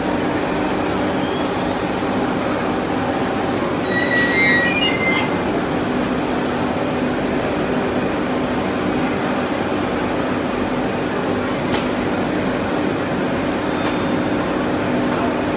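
Multi-spindle CNC wood lathe running, its spindle motors humming steadily while the cutters work curved wooden chair legs. A brief series of high-pitched squeaks comes about four seconds in.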